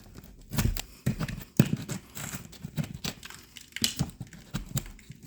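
Irregular scrapes, taps and small knocks of hand work at a drywall ceiling crack, loose joint compound and tape being picked out by hand and putty knife.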